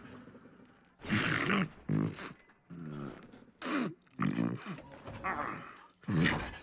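An animated tow truck character's voice making short wordless sounds, about seven in a row, as he wakes up and stretches.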